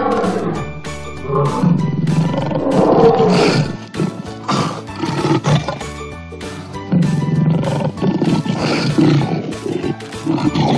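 Recorded lion roaring and growling in several long, rough calls about every two seconds, over light background music.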